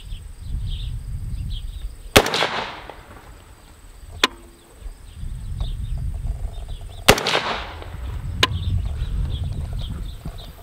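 Two shots from an IWI Zion-15 AR-15 rifle in 5.56, about five seconds apart, each followed by a long fading echo. A fainter sharp click comes a second or so after each shot.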